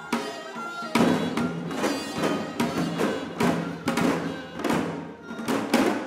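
Korean traditional music for the janggu dance, with a held melody line. About a second in, janggu hourglass drums start a fast, even rhythm of strokes, about three a second.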